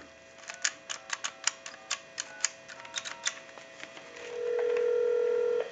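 Touch-tone keypad in a Western Electric Trimline handset dialed quickly: about a dozen key clicks, each with a short tone beep. About four seconds in, a steady ringback tone comes over the line for a second and a half.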